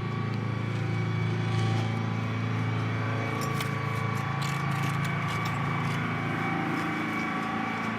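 Steady low hum of a boat's machinery running, even in level, with a few faint clicks midway.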